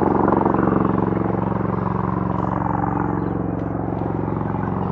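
Bell Boeing MV-22 Osprey tiltrotor in helicopter mode, its two big proprotors beating with a steady, rapid pulsing drone that fades a little over the few seconds.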